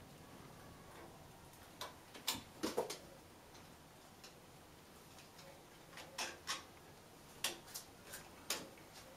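Light, irregular clicks and taps in three short bunches: a cat's claws and paws on a wooden wall shelf.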